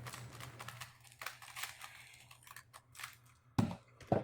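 A 3x3 speed cube being turned rapidly, giving a fast run of light plastic clicks, followed by two loud thumps near the end.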